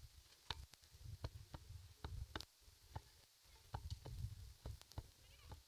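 Faint, sharp clicks at irregular intervals, some in quick pairs, over a patchy low rumble.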